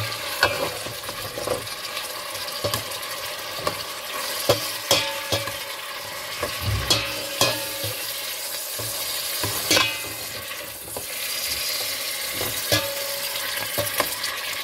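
Beef and onions sizzling in oil in a stainless-steel pot, stirred with a spatula that scrapes and knocks against the pot every second or so.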